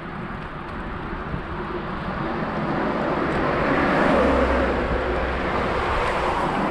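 A motor vehicle passing close by on the road, its tyre and engine noise swelling to a peak about four seconds in and then holding.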